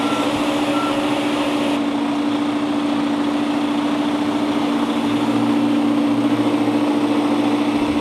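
Work truck's engine and hydrostatic remote drive running under load as the truck is driven by radio remote, giving a steady whine over the engine sound.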